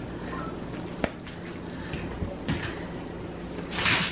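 A dog scrabbling and moving on a hardwood floor during fetch. There is one sharp knock about a second in and a few light taps, then a louder scuffle near the end as the dog leaps up.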